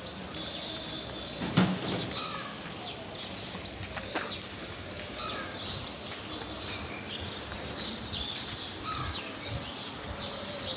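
Small birds chirping and twittering irregularly over steady street background noise. Two sharp knocks stand out, about a second and a half in and again about four seconds in.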